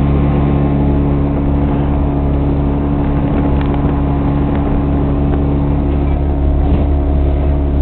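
Speedboat engine running steadily at speed, a loud, even drone heard from on board.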